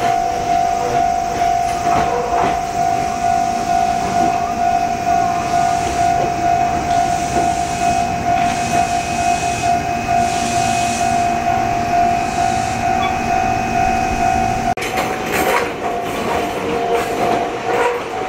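A 205 series 1100-subseries electric train rolls slowly along a curved platform, giving a steady high-pitched squeal and light clicks over the rail joints. About fifteen seconds in, a sudden burst of rattling noise joins the squeal.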